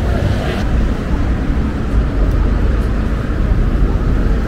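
Busy city street ambience: a steady low rumble of traffic. The higher hiss drops away suddenly just under a second in.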